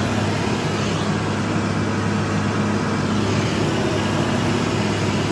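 Farm tractor's diesel engine running steadily at an even pitch while pulling a disc harrow.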